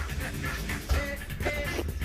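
Background music with a steady beat, and a single louder thump a little under a second in.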